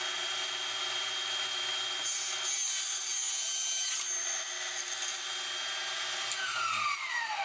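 Small benchtop table saw running with a steady high whine, its blade cutting through a model girder bridge section between about two and four seconds in. Near the end the motor is switched off and the whine falls away as the blade spins down.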